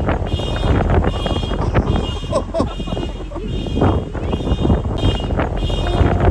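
Car alarm sounding in a repeating on-off pattern of high electronic tones, set off by gusting wind, over heavy wind rumble on the microphone.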